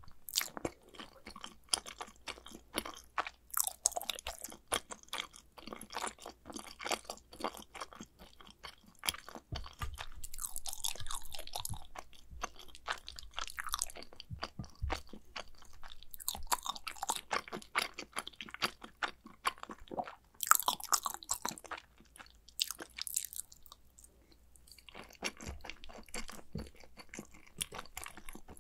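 Close-miked chewing of macaroni and cheese: a steady run of sharp mouth clicks and smacks, with a few longer hissing stretches between bites.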